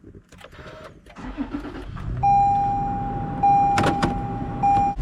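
A car engine starting and settling into a low idle, then a steady electronic warning tone from the car sounding in long repeated notes, with a couple of sharp clicks partway through.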